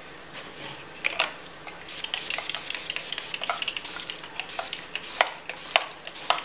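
Trigger spray bottle squeezed over and over, a quick string of short hissing sprays with clicks, starting about a second in.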